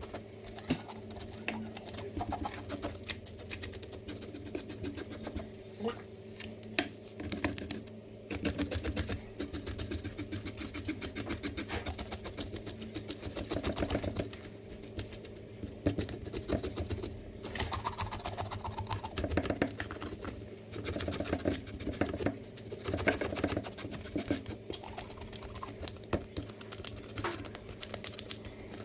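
A knife scraping the scales off a whole red fish on a wooden cutting board: fast, repeated rasping strokes, over a steady low hum.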